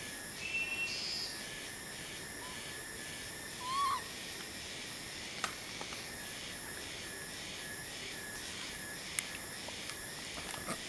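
A steady high insect chorus, pulsing evenly, with one short rising-and-falling animal call about four seconds in and a couple of sharp clicks later.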